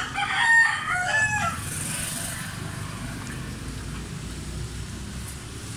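A rooster crowing once, a bending call about a second and a half long, followed by a steady low background rumble.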